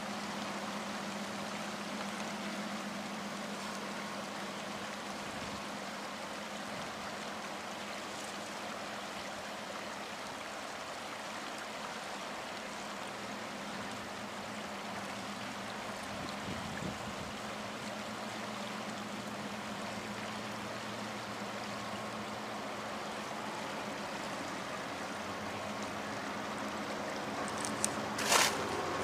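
Shallow river water rushing and rippling steadily over a gravelly riffle, with a faint low hum underneath. A couple of sharp knocks come about a second before the end.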